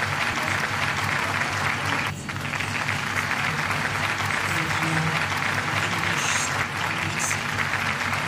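Steady applause-like clapping with background music underneath.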